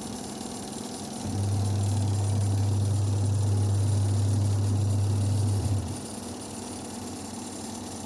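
Sharp Aqua Magic twin-tub washing machine motor running with a low mains hum. It starts about a second in, cuts off shortly before six seconds and starts again at the very end.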